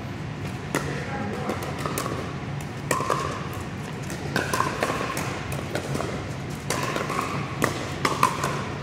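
Pickleball rally: a plastic ball popping off hard paddles and bouncing on the court in a quick, irregular series of sharp hits, some with a short ringing ping, echoing in a large indoor hall.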